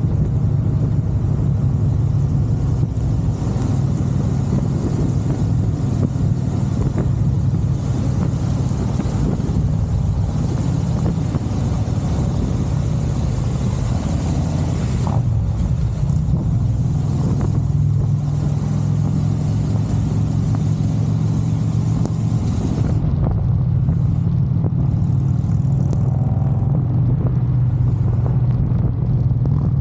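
Harley-Davidson touring motorcycle's V-twin engine running steadily at cruising speed, under a constant rush of wind and wet-road noise. The highest part of the hiss drops away about two-thirds of the way in.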